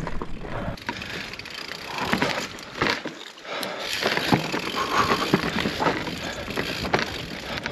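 Mountain bike riding down loose volcanic rock: the tyres crunch and clatter over stones, and the bike rattles with irregular knocks over the bumps.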